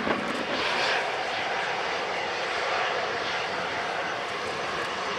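Airbus A319's CFM56 turbofan engines running, a steady rush of jet noise.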